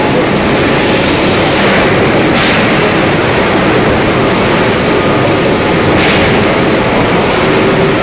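Steady roar of a running Voronezh AKKB 8046.01 4000-tonne hot forging press, its large flywheel turning. Two sudden bursts of hiss come about three and a half seconds apart.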